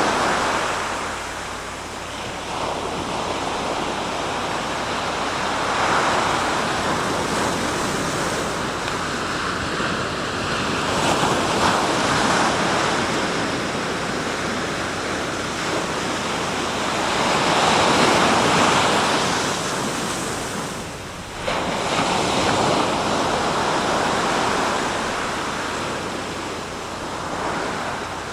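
Sea waves breaking and washing on the shore, the surf swelling and ebbing every few seconds, with a brief lull about three quarters of the way through.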